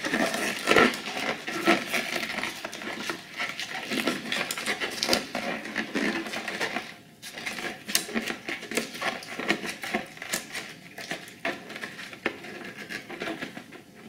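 Hands knotting the neck of an inflated orange latex balloon: a dense run of small rubbing and clicking sounds from the stretched latex being twisted and tied, softer after about seven seconds.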